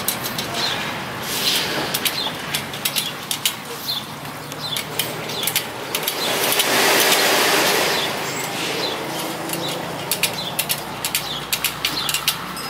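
Spoke wrench turning the nipples of a motorcycle wire-spoke wheel on a truing stand, with quick, irregular metal clicks and ticks as the spokes are tightened. A louder rushing noise swells for about two seconds midway.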